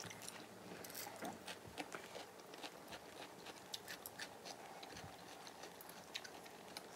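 Faint eating sounds: scattered small clicks and taps of a metal spoon and chopsticks against the food bowls, with chewing.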